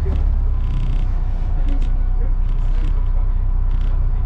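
Dennis Trident double-decker bus on the move, heard from the upper deck: a steady low engine rumble with frequent short creaks and rattles from the bodywork and fittings.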